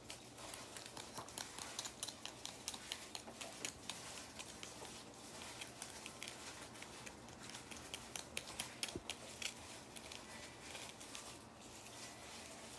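Quiet, irregular crackling and clicking of a Kinder Joy's foil wrapper and plastic packaging being handled and opened.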